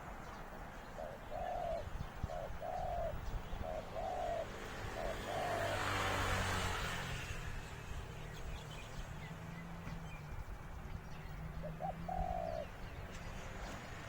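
Zebra dove cooing: a quick run of short coo notes in the first few seconds, then a couple more near the end. A brief rush of noise comes in about six seconds in.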